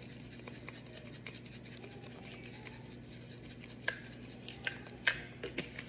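Faint rasping shakes of a garlic salt shaker being sprinkled over shredded chicken, with a few light clicks and taps in the last two seconds.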